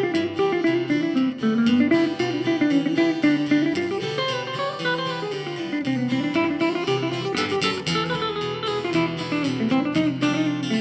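Two guitars playing together, an acoustic-electric and a hollow-body electric. A picked melody rises and falls over steady bass notes.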